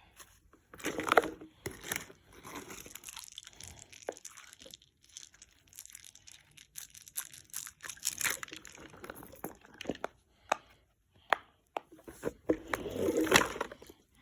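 Fidget toys being handled close up: irregular clicks and crinkly, crackling noises, loudest about a second in and again near the end.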